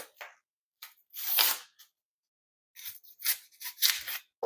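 A knife scraping and tearing the dry papery skin off a red onion, as a series of short, rasping scrapes.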